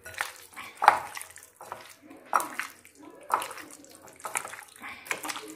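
A bare hand squishing chunks of chicken, onion and capsicum through a thick cream-and-curd marinade in a glass bowl: wet squelching in irregular strokes, about two a second.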